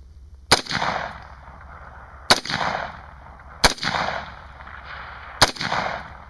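Four single rifle shots from an AR-15, spaced one to two seconds apart, each followed by a rolling echo.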